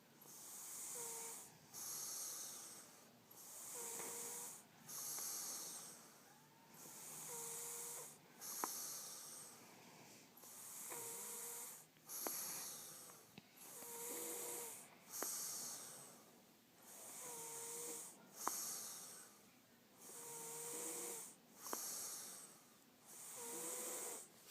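A man snoring in his sleep: a long, hissy breath about every three seconds, eight in all, each ending in a short whistling note, with a faint click in some of the breaths.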